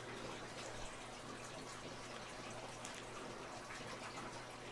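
Quiet hiss and a steady low hum with a couple of faint small clicks, about one second and three seconds in, from a tubular lock pick and padlock being handled.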